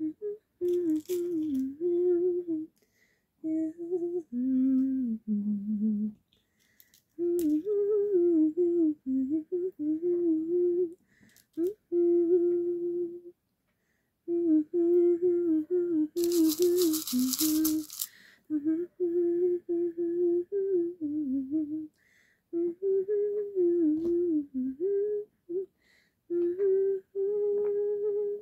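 A woman humming a tune to herself in short phrases with brief pauses between them. About halfway through, a burst of hiss-like noise lasts about two seconds, and a few faint clicks come in near the start.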